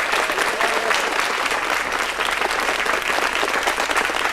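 Audience applauding, dense and steady clapping throughout.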